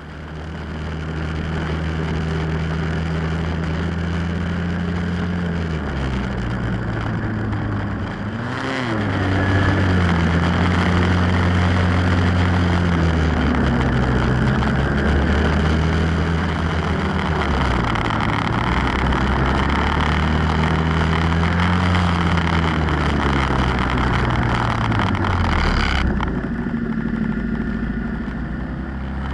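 Snowmobile engine running under way, its pitch rising and falling again and again as the throttle opens and eases, under a steady rushing noise. Near the end the throttle is let off and the sound drops and quietens.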